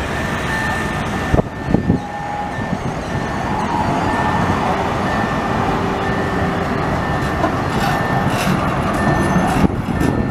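A Wiener Linien type E2 tram with its c5 trailer passing close by, its wheels and running gear rumbling steadily on the street track. There are a few sharp knocks about a second and a half in and again near the end, and a faint high tone that comes and goes.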